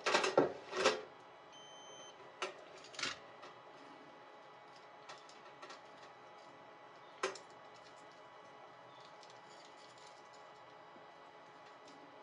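Clicks of a digital multimeter's rotary dial and test leads being handled, with a short high beep from the meter about a second and a half in, the meter's continuity buzzer. A few single light clicks follow as the probes are set against the ends of the heater rod.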